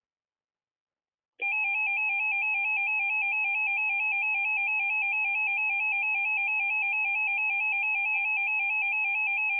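Emergency Alert System two-tone attention signal: a loud, steady dual tone that starts after about a second and a half of dead silence and holds unchanged. It is the alert tone that introduces a broadcast emergency message, here a tornado warning.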